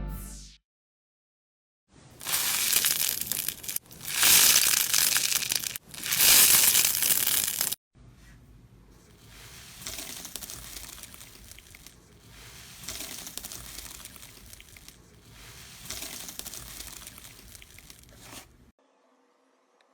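Slime being squeezed, pulled and torn by hand, with three loud crackling, crunching stretches followed by softer squishes about every three seconds.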